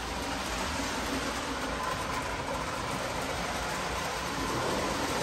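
O gauge model train, an Erie Alco diesel pulling a mixed string of cars, running along three-rail track: a steady rumble of metal wheels and motor.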